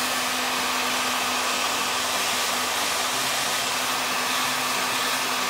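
Hot-air plastic welding gun blowing steadily on a plastic EasyShoe and cuff, heating them to the point of melting. It gives a constant rush of hot air over a steady low hum.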